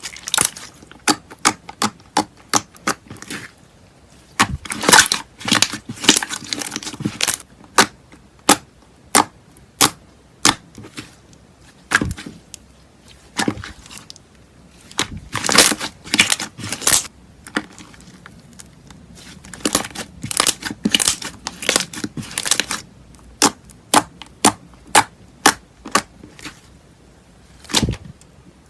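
Slime squeezed and pressed by hand, giving sharp pops and clicks, some single and some in quick crackling runs.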